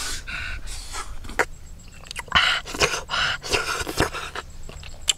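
A person eating chewy octopus with chili sauce: irregular wet smacks and clicks of the mouth mixed with breathy, panting exhalations.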